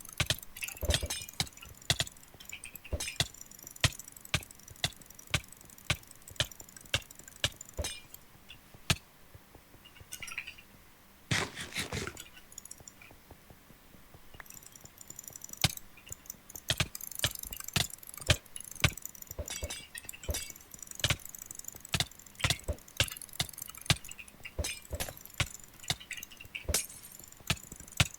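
Computer mouse buttons clicking, sharp single clicks at irregular intervals, many in quick double and triple bursts. A longer rustling sound lasts about a second near the middle.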